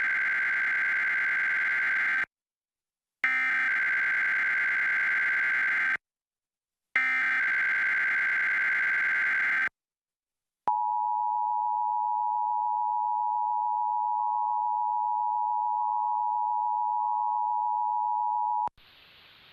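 Emergency Alert System required monthly test tones: three bursts of SAME header data, a harsh warbling screech about three seconds each with a short pause between, then the EAS attention signal, a steady two-note tone held about eight seconds that stops abruptly, leaving faint hiss near the end.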